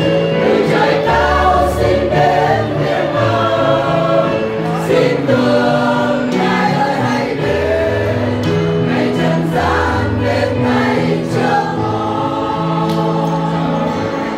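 Mixed choir of women and men singing a hymn together, with long held notes.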